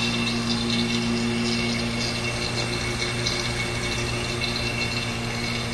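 Electric refrigeration vacuum pump running with a steady, unchanging motor hum.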